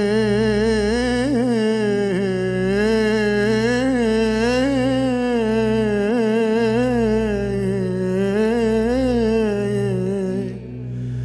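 A male singer's voice in a free-rhythm Algerian istikhbar vocal improvisation: one long wordless held line, wavering and ornamented, over a low steady drone from the band. It breaks off briefly near the end and then starts again.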